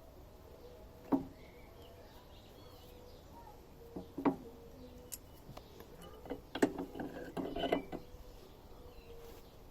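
Metal mower parts and tools being handled during gearbox reassembly: a sharp knock about a second in, another around four seconds, and a quick run of clicks and knocks in the second half.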